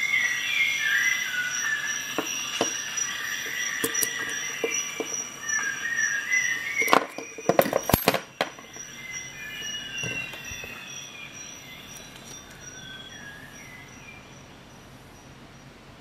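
Steel jigsaw blade squeaking and scraping in the multi-tool's T-shank blade holder as it is worked back and forth. About seven seconds in comes a quick run of sharp metal clicks as the blade and tool parts are handled.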